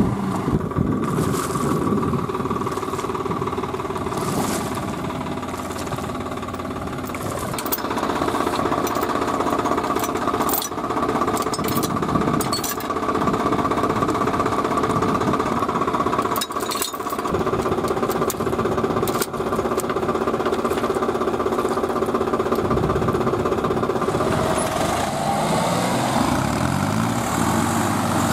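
Farm tractor diesel engines running steadily with a rattling beat. In the middle come a few sharp metal clanks as a tow chain is hooked to a drawbar, and near the end an engine revs up, its pitch rising.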